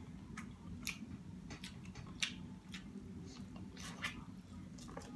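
A person chewing boiled seafood, with irregular sharp mouth clicks over a steady low hum.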